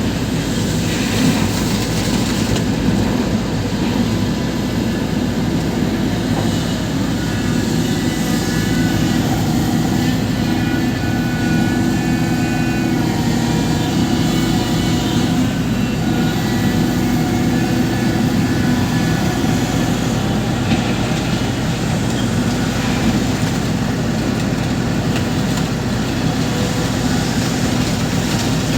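Diesel engine of a Cat 350 excavator running steadily with a continuous low drone, while fainter higher tones come and go through the middle.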